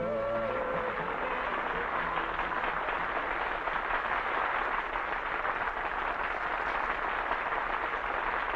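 Audience applauding at the end of a song, an even patter of clapping, with the singer's last held note fading out about a second in.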